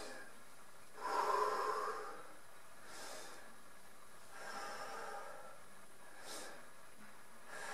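A person breathing slowly and deeply in and out, about two full breaths, the loudest breath about a second in. It is a calming breathing exercise after exertion.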